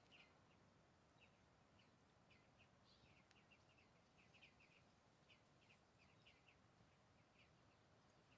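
Near silence, with faint, scattered short bird chirps coming every fraction of a second to a second over a low outdoor hush.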